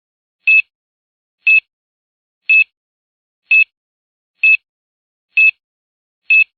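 Short, high electronic beeps repeating about once a second, seven in a row, each a brief single tone: a timer-style loading sound effect.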